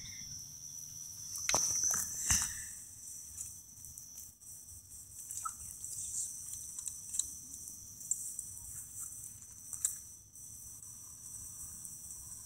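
A steady, high-pitched insect chorus, with a few sharp clicks about one and a half to two and a half seconds in and fainter ticks after.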